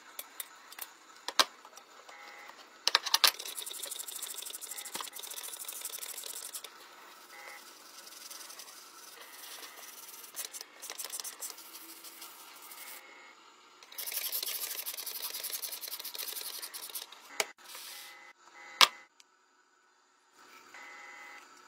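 Hand-work on a rusty diecast model car body: scattered sharp clicks and taps of small metal parts, two long stretches of steady hissing, one loud click a few seconds before the end, then liquid poured from a glass bottle into a plastic cup.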